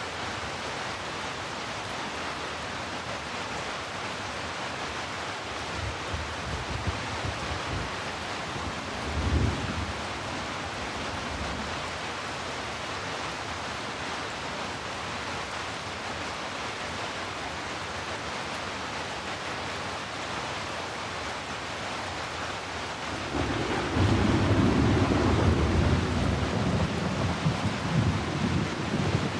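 Heavy rain falling steadily, a dense even hiss, with low rumbles of thunder: a soft one about six seconds in, a short sharper one near nine seconds, and a long, louder rolling rumble from about 23 seconds that runs on.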